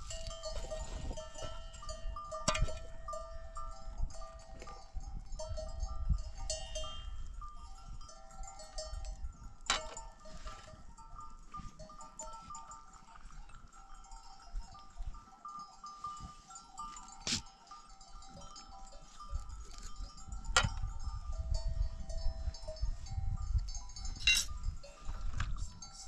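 A flock of sheep and goats with bells on them, the bells clinking on and off, with several sharp knocks. A low rumble comes and goes underneath.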